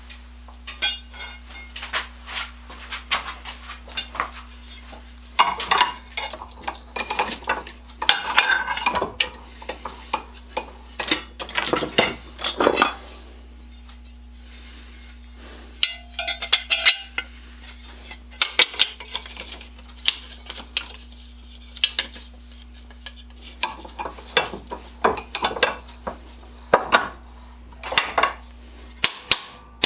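Metal parts and hand tools clinking and clattering irregularly, in short clusters with pauses, over a steady low hum.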